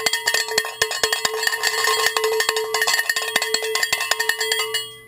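Cowbell struck rapidly and repeatedly, its steady clanking ring sounding throughout, then cutting off suddenly near the end.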